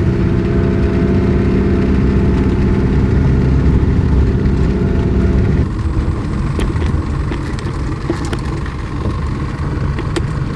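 1995 Toyota Hilux in four-wheel drive, engine running steadily as it drives along a dirt track, easing off a little over halfway through. Scattered clicks and knocks follow.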